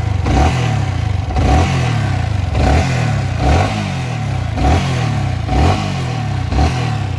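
Yamaha R15 V3's 155 cc single-cylinder engine being revved in short blips about once a second, each rising and dropping back toward idle, after a valve clearance adjustment to cure its knocking. A slight vibration-type sound is still audible.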